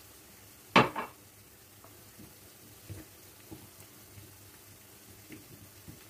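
Dishes and kitchenware being handled: a loud double clatter about a second in, then several light knocks and clinks.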